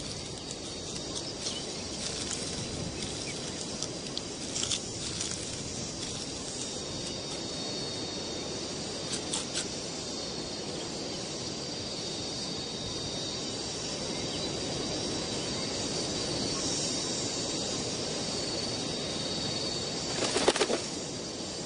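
Natural ambience: a steady high insect hum over a low hiss, with a few short clicks and rustles. Near the end comes a brief flurry of wingbeats as a palm-nut vulture takes off.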